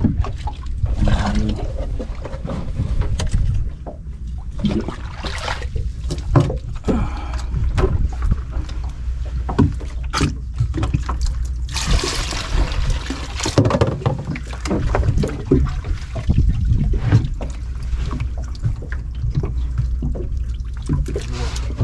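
Water sloshing and splashing around a small boat, with scattered knocks and rattles of gear being handled, over a steady low rumble. A longer, louder splashing rush comes about twelve seconds in.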